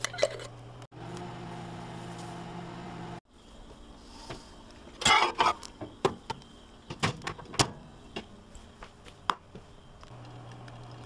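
A steady low hum that cuts off sharply twice, followed by a series of irregular sharp clicks and knocks, with a cluster about five seconds in and single ones after it.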